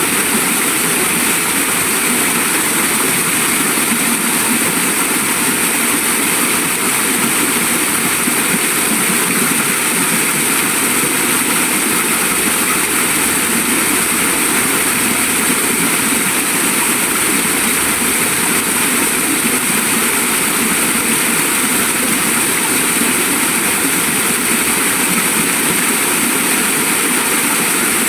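Waterfall rushing steadily: a continuous, even wash of falling water.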